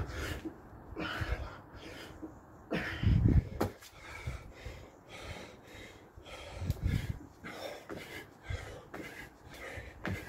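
A man breathing hard and fast from exertion during burpees and jump squats, with short forceful exhales, and thuds and scuffs of hands and trainers landing on stone paving. The loudest thuds and breaths come about three seconds in.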